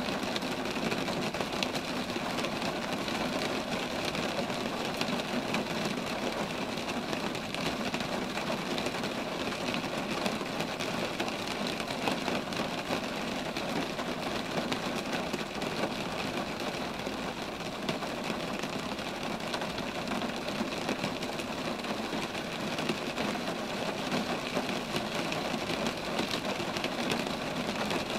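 Steady rain falling on roadside trees, a dense even patter that does not let up.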